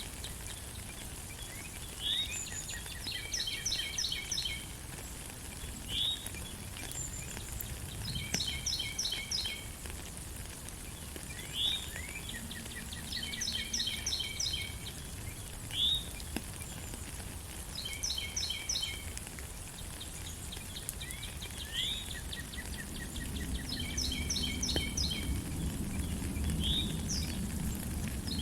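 Steady rain with a songbird repeating its song. The song alternates a quick rising whistle with a short burst of rapid high notes, about every two seconds. A low rumble builds in the last few seconds.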